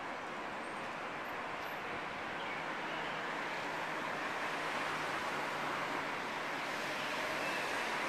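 Steady wash of distant city traffic noise, growing a little louder partway through.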